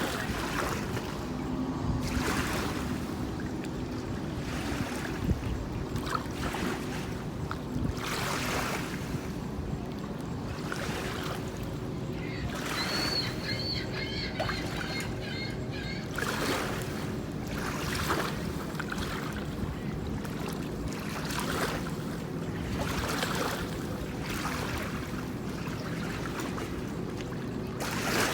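Boat motor running with a steady low drone while water washes and splashes in recurring surges every second or two. A brief high warbling sound comes in about halfway through.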